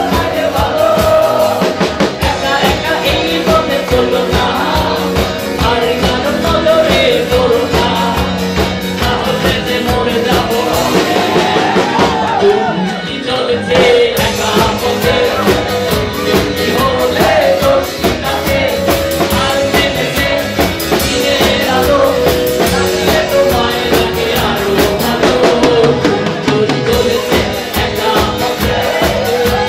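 Live band playing an upbeat song with a singer, keyboard, electric guitar and drum kit keeping a steady beat. The drums drop back briefly about twelve seconds in, then return.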